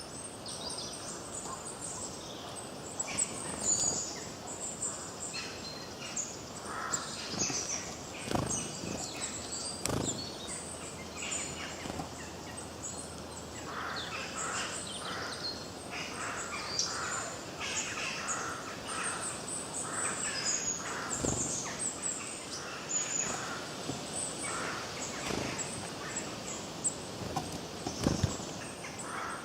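Several songbirds chirping and singing at once, in many short overlapping calls, with a few soft knocks scattered through.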